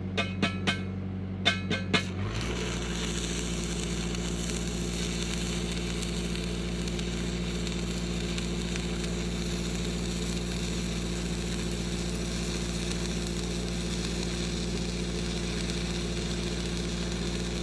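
A few sharp metallic clicks. About two seconds in, a stick-welding arc is struck with a 7014 rod and crackles steadily, with the Lincoln SAE 300 engine-driven welder running underneath. The engine's note shifts as the arc takes load.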